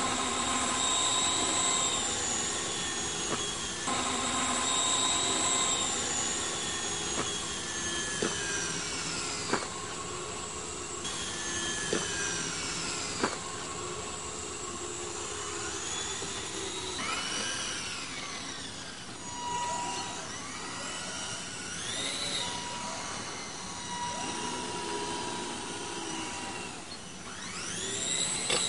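A high-pitched motor whining steadily, its pitch rising and falling several times, with a few sharp clicks in the first half.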